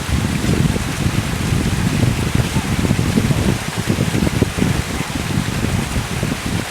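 Steady rush of a waterfall, with wind buffeting the microphone in low, irregular gusts.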